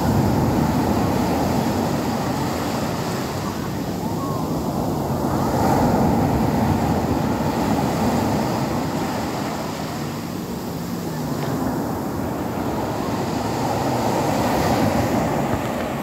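Rough-sea surf breaking and rushing up a beach, a dense steady wash that swells louder and eases off with each breaking wave.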